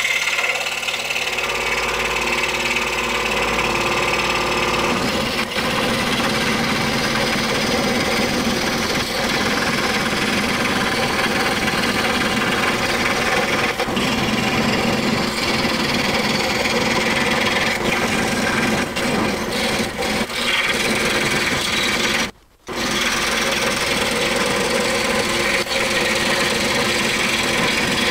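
Scroll saw cutting through a thick block of cherry, a tough cut, the blade running steadily through the wood. There is a momentary break about three quarters of the way through.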